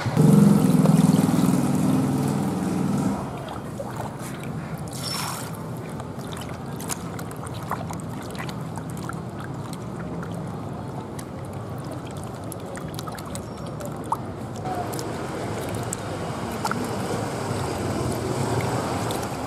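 Water poured into a plastic basin for about the first three seconds, the loudest part, then hands sloshing and kneading a raw bull stomach in the basin water, with small splashes and squelches.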